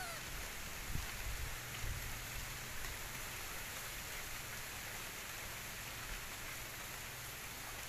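Steady, even outdoor background hiss with faint low rumbles now and then, and a short rising squeak right at the start.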